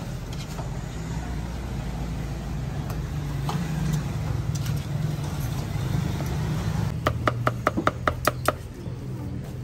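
Steady low engine rumble, then near the end about ten quick cleaver chops on a wooden chopping block, several strikes a second, as braised beef is cut up.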